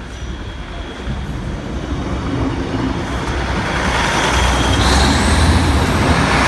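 East Midlands Railway Class 156 diesel multiple unit approaching and running past the level crossing, its engine and wheel rumble building steadily louder. A faint high whine rises in pitch in the last second or so.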